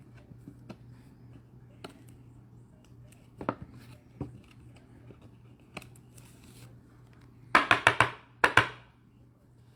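Trading cards being handled: scattered light clicks and taps, then a quick run of sharp snaps and flicks near the end. A faint low hum runs underneath.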